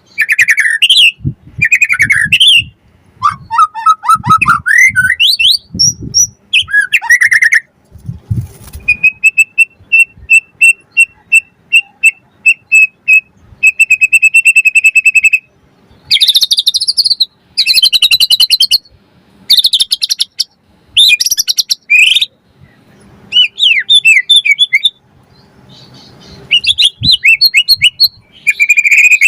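White-rumped shama singing a varied song of loud whistled slides and chirps. In the middle comes a long run of quick repeated notes, about six a second, then harsher chattering bursts.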